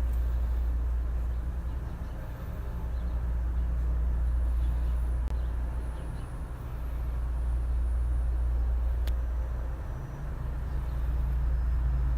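Low rumble of wind buffeting the microphone, swelling and easing every few seconds.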